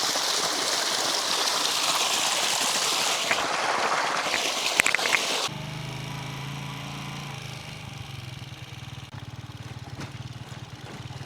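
A mountain stream rushing for about five and a half seconds, with a few small clicks. Then a sudden cut to a vehicle engine running at a steady speed, a low even hum.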